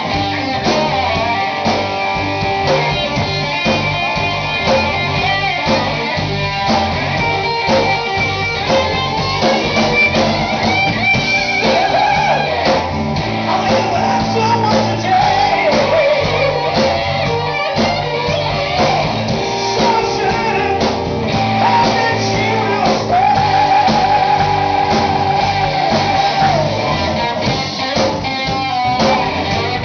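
Live band playing: electric guitars and drums, with a man singing into a microphone at times and a wavering melody line most prominent in the middle and towards the end.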